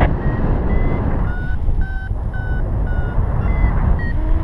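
Paragliding variometer beeping, about two short beeps a second, the pitch dipping in the middle and rising again near the end: the tone that signals the glider is climbing. Wind rushes over the microphone underneath.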